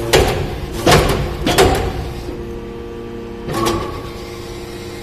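Hydraulic metal-shavings baler running: a steady machine hum with four short, loud bursts of noise in the first four seconds.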